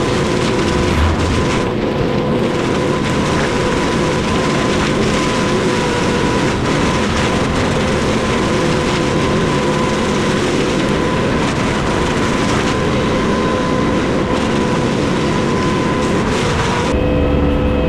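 Loud, steady machine noise with a thin steady whine running through it. It cuts off sharply about a second before the end.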